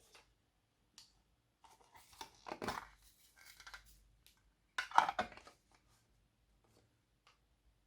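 Glossy slime being handled and pulled, giving sticky crackling and tearing sounds in two bursts, one about two seconds in and a louder one about five seconds in.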